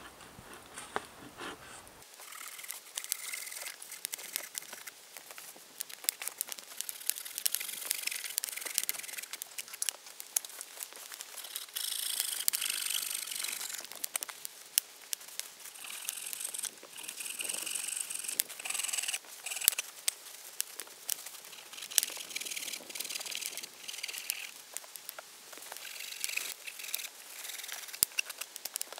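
Wood fire crackling in a stone fire pit, starting about two seconds in: many sharp pops and snaps over a hiss that swells and fades.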